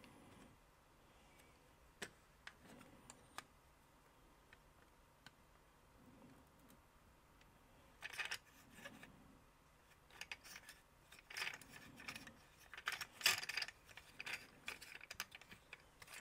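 Hard plastic clicking and rattling from a G.I. Joe Swampmasher toy as a purple wheel is pressed onto its repaired axle post and the wheels are worked by hand. A few scattered clicks, then a quicker run of clicking from about halfway through. The newly fitted wheel is not turning freely like the others.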